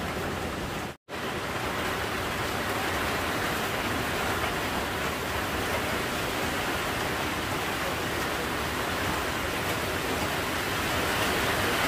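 Steady hiss of a large pot of pig intestines and vegetables at a hard rolling boil over a wood fire. There is a brief break about a second in.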